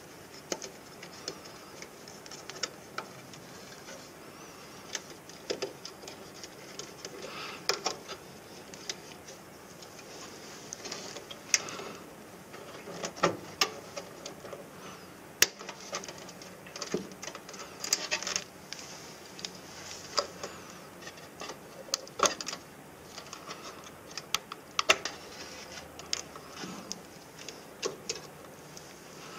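Irregular small clicks and taps of hands working wire connectors, wiring and sheet-metal parts during the replacement of an inverter circuit board.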